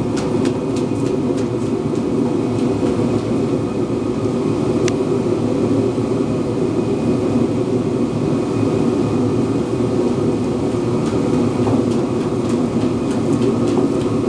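A steady mechanical whir that starts suddenly just before and holds at an even level, with a few sharp clicks near the start and again near the end.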